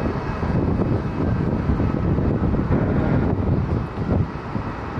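Jet airliner engines rumbling steadily, with wind buffeting the microphone.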